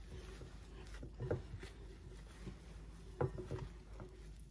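Bare hands rubbing and squeezing torn flatbread with ground flaxseed, spices and oil: faint soft squishing, with a few light knocks about a second in and again after three seconds.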